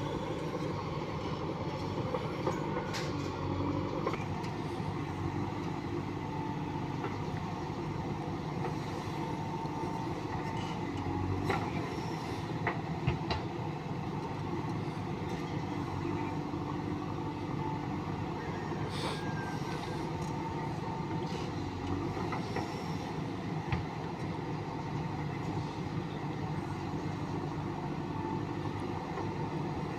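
Diesel engine of a JCB 3DX backhoe loader running steadily at work, with a few sharp knocks now and then.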